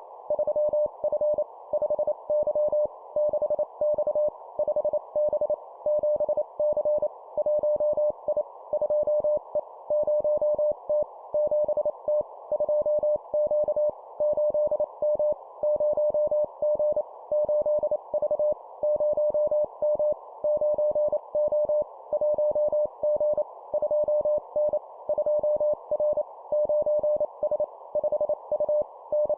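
Morse code (CW) sent at 25 words per minute: a single steady medium-pitched tone keyed on and off in quick dits and dahs, spelling short two-character groups of letters and numbers, over a faint steady band of hiss.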